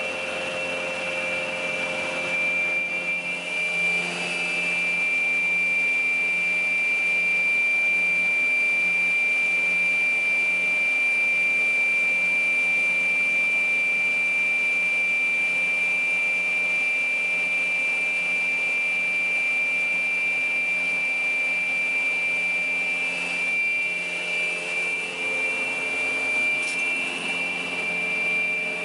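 PAUL K3U800 multi-rip arbor saw running: a steady mechanical hum with a constant high whine over it, dipping and wavering slightly a few seconds in and again near the end.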